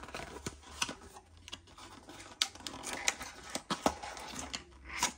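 Cardboard packaging being handled: a smartwatch box's cardboard inner tray and sleeve being folded open, giving a scatter of light clicks, taps and scrapes, with a few sharper ticks in the second half.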